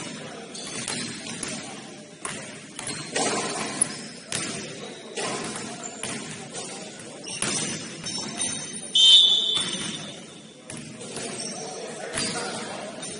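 Basketball game sounds in a gym: the ball knocking on the court now and then over a murmur of players' voices, with a short, loud high-pitched squeal about nine seconds in.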